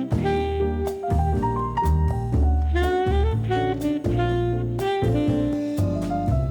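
Background jazz music: a saxophone playing a melody over bass and drums.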